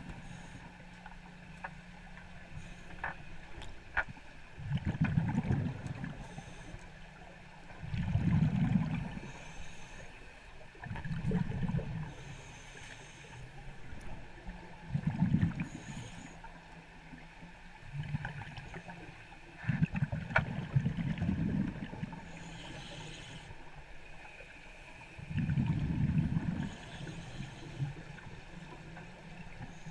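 Underwater sound: a scuba diver's exhaled bubbles rumbling past the microphone in surges of about a second, every three to five seconds, over a steady low hum.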